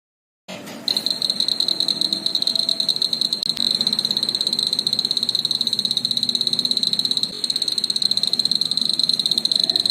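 Electronic bug-sound circuit built with BC547 transistors, giving a high, shrill insect-like chirp that pulses rapidly and evenly at a steady pitch, starting about a second in.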